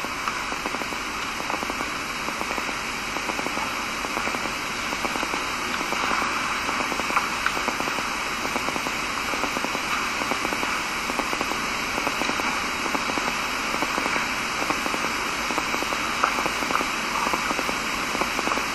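Steady hiss of recording background noise with a faint crackle running through it, and no speech.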